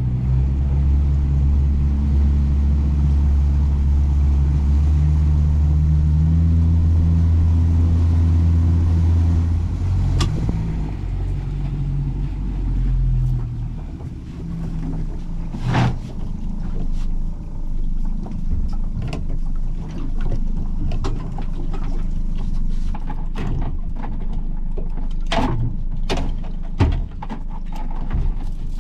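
Small fishing boat's engine running steadily under way, changing and easing off about ten seconds in, after which a lower hum continues with scattered knocks and clicks.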